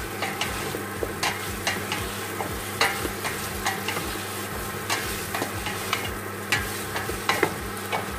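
Pork cubes, onions and garlic sizzling as they fry in a stainless steel pot, stirred with a spatula that clicks and scrapes irregularly against the pot's bottom and sides.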